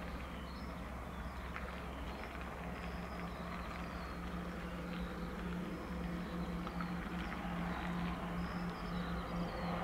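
Embraer 120 twin turboprop on approach: a steady propeller drone that grows slowly louder as the aircraft nears. Birds chirp faintly over it.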